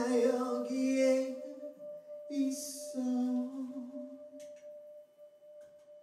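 Male vocalist singing two long held notes with almost no accompaniment, over a steady ringing tone. The voice fades away in the second half.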